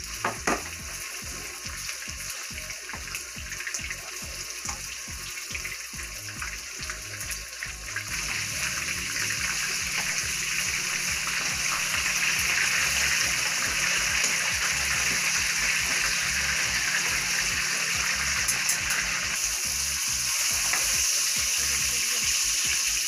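Seasoned steak sizzling in hot oil in a frying pan, a steady hiss that grows louder about eight seconds in. A sharp clink of metal tongs comes right at the start.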